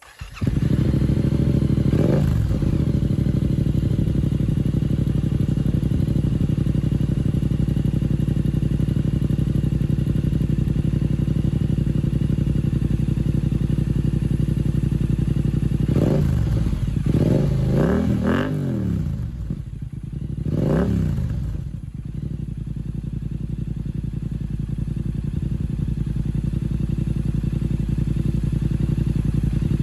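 Yamaha YZF-R7's parallel-twin engine through an aftermarket slip-on exhaust, coming in suddenly and idling steadily. It is blipped with short throttle revs: once early on, a quick cluster of revs past the middle, and one more shortly after.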